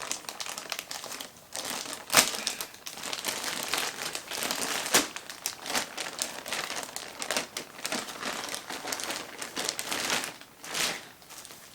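Compostable plastic packaging crinkling and crackling as a mailer bag is opened and the packets inside are handled, with sharp snaps about two seconds and five seconds in.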